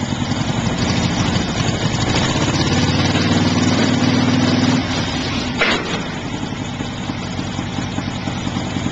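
1963 Kristi KT-3 snowcat's engine pulling the tracked machine up a tilt-bed trailer, louder from about two seconds in, then easing back to idle a little before five seconds. About a second later a single sharp clank as the trailer bed tips level, after which the engine idles steadily.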